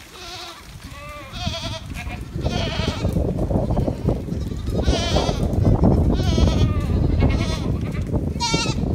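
A large herd of goats bleating: many separate wavering calls at different pitches, one after another and overlapping. From about two seconds in, a loud low rush of noise builds beneath the calls and stays.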